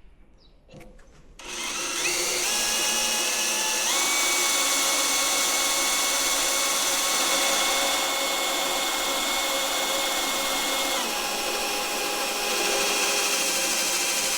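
Electric drill with a 4 mm bit boring through a whisky barrel's steel hoop into the stave. It starts about a second and a half in and runs as a steady whine, stepping up in pitch twice, then dropping a little later on.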